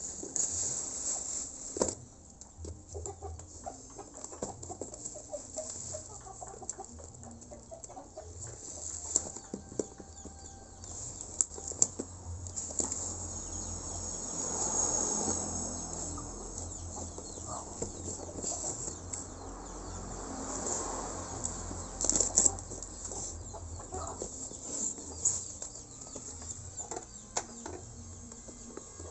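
Cardboard box being cut open: scissors and a pointed tool slitting and scraping along the packing tape, with rustling cardboard and scattered clicks and knocks as the box is handled. A longer stretch of scraping comes around the middle.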